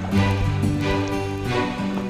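Music with sustained low notes and a regular beat about every two-thirds of a second.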